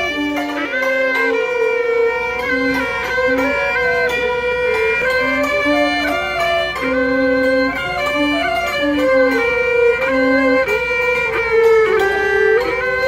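Gaohu, an ebony-bodied Cantonese high-pitched two-string fiddle with a snakeskin-covered soundbox, bowed in a slow, flowing melody with slides between notes. A lower part sounds short held notes beneath it.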